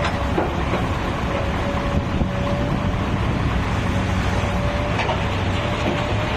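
Komatsu backhoe loader's diesel engine running steadily under work, with a steady high whine over the low rumble and a few faint knocks.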